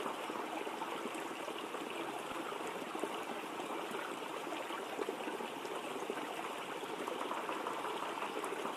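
Waterfall rushing steadily, an even splashing hiss of falling water.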